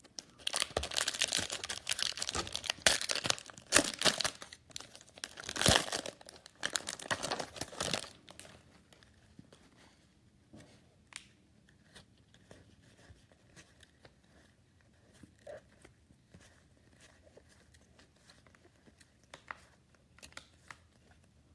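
Plastic wrapper of a trading-card jumbo pack being torn open and crumpled, crackling loudly for about eight seconds. After that come only faint scattered ticks of cards being handled.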